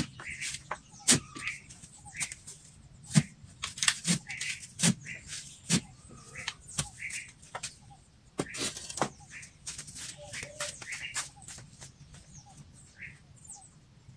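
A long-handled digging spade repeatedly chopping into the soil to dig a post hole, a series of sharp strikes with a longer scrape near the end; they stop about nine seconds in. Birds chirp in the background.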